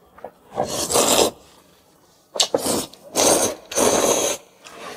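A person slurping a mouthful of noodles, in four breathy sucking bursts. The first comes about half a second in, and three follow close together in the second half.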